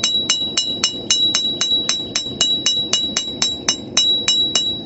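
Hand hammer striking hot steel on an anvil in a steady run of blows, about four a second, each with a bright metallic ring from the anvil, stopping near the end. This is the blacksmith drawing out the centre of a forged hairpin to thin it.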